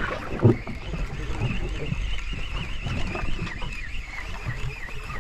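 Steady low rumble of a boat at sea, with water and wind noise, a single thump about half a second in, and a thin high whine that wavers quickly up and down through the second half.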